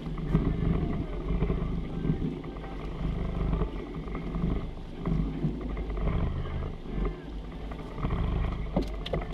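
Small boat's outboard motor running at low trolling speed, under an irregular wash of wind and water noise.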